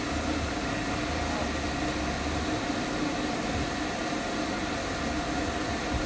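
Pet-grooming stand dryer blowing steadily: a constant rush of air with a steady motor hum.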